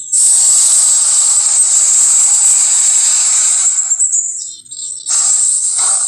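A movie monster sound effect: a loud, rough, breathy hiss-roar lasting about four seconds, then a shorter one about five seconds in.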